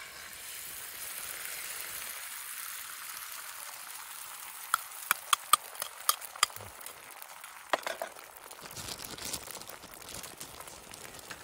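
Beaten egg hitting a hot non-stick pan on a portable gas camping stove and sizzling steadily as an omelette starts to fry. A quick run of sharp clicks comes about halfway through, with one or two more a couple of seconds later.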